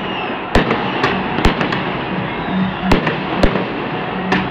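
Aerial fireworks going off: six sharp bangs at uneven intervals over a continuous din of more fireworks.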